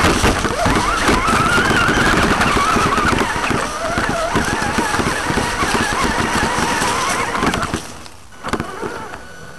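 Traxxas Summit RC truck's electric motor whining, its pitch wavering up and down with the throttle, over a dense rattle of drivetrain and tyres crackling through dry leaves and brush. It falls away about eight seconds in.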